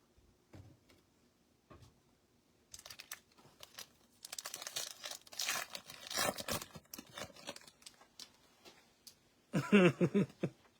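Foil trading-card pack wrapper being torn open and crinkled, a dense crackling run lasting several seconds. A brief voice sound follows near the end.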